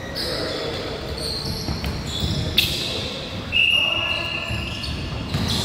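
Basketball bouncing on a hardwood gym floor during play, with short high sneaker squeaks and voices echoing in the large hall.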